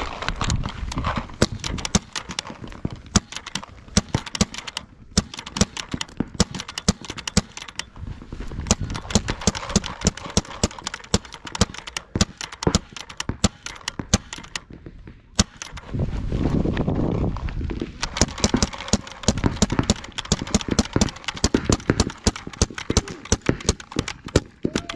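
Pump paintball markers firing during a one-on-one game: sharp pops come thick and fast, several a second, with brief pauses. A low rumble comes in about two-thirds of the way through.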